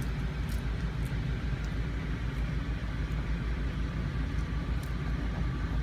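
Steady low engine rumble, with a few faint clicks on top.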